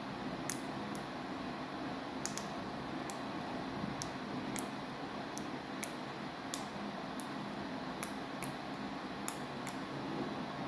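Samsung washing machine running with a steady hum and whoosh, broken by sharp, irregular clicks every half second or so.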